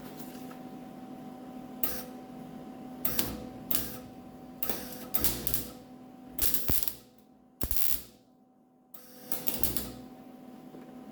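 MIG welder laying short tack welds to fill holes in fender sheet metal: about eight brief bursts of crackling arc, a second or so apart, over a steady hum.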